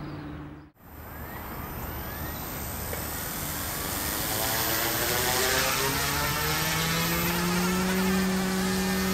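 OMPHOBBY M2 electric RC helicopter spooling up, its direct-drive main and tail rotor motors whining. The whine starts about a second in and rises in pitch over several seconds, then holds steady as the heli lifts off and flies, with the rush of the rotor blades under it.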